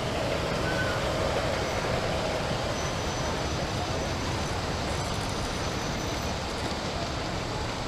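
G-scale model passenger train running past on garden railway track: a steady rolling noise from its wheels and motor.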